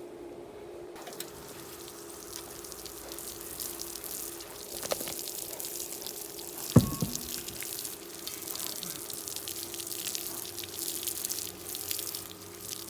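Water running and splashing, as from a hose, with a steady hum underneath and one sharp knock about seven seconds in.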